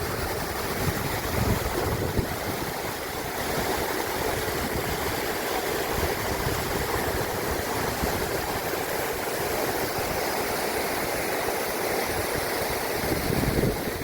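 Steady rushing of mountain water from the Sti Fadma cascades and stream, an even noise with no breaks.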